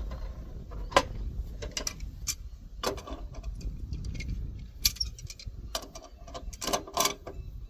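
Metal tools and pump parts clinking and knocking as the pump sections are clamped and worked with a vise and pipe wrench: irregular sharp clicks, the loudest about a second in, near the middle and near the end.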